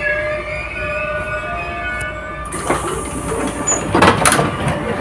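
Commuter train standing at a platform with a steady hum and several held tones. About two and a half seconds in the passenger doors open and outside air noise comes in. Clunks follow, the loudest about four seconds in, as the passenger steps off onto the platform.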